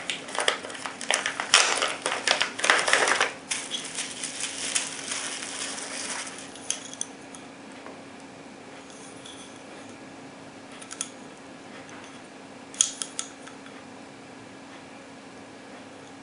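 Hard G-10 grip panels and their plastic packaging being handled: a dense run of rustling and sharp clicks for the first few seconds, softer handling after that, then a few isolated clicks as the panels are set down.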